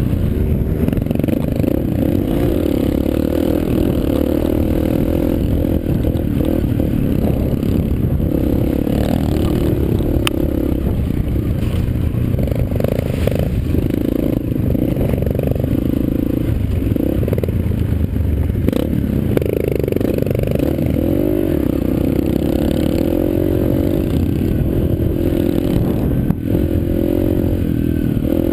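Yamaha TT-R125 dirt bike's single-cylinder four-stroke engine running while riding a rough trail, its revs rising and falling with the throttle.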